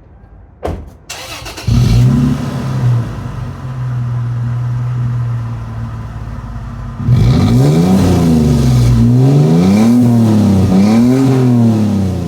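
A 2003 Toyota 4Runner's 4.0-litre V6 cranking briefly and starting through a newly installed MBRP Armor Lite turndown cat-back exhaust, then settling into a steady idle. From about seven seconds in it is revved up and down several times.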